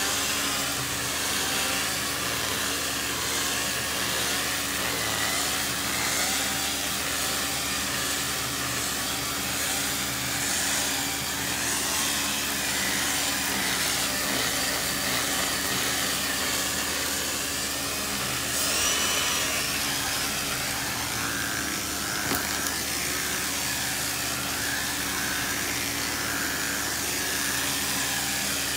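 Janilink portable carpet extractor's vacuum motor running steadily with a constant hum, as its hand tool is drawn across wet carpet.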